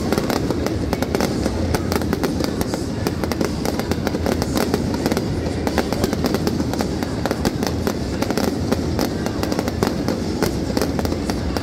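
Fireworks display: a dense, unbroken run of bangs and crackles over a continuous deep rumble.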